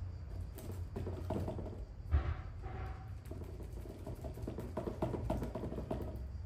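Paintbrush stippling resin into a sheet of fibreglass chopped strand mat: a rapid, uneven run of small taps and dabs, over a low steady hum.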